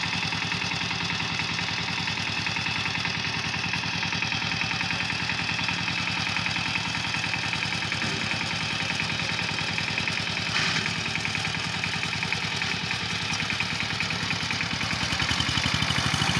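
CHANG TUO 12-horsepower power tiller's single-cylinder diesel engine chugging steadily under load as the tiller works the soil.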